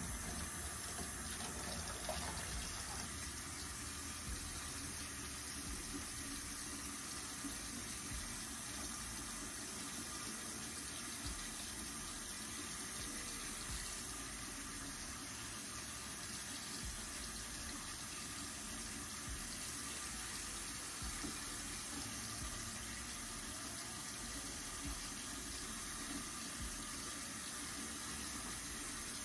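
Bathroom sink faucet running steadily, water pouring into the basin as plastic combs are rinsed under the stream.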